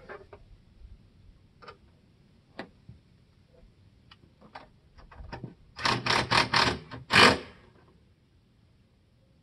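Scattered clicks and taps of hand tools and bolts as support hardware is fitted inside a tractor snow cab. About six seconds in comes a quick run of five louder strokes, the last one longer.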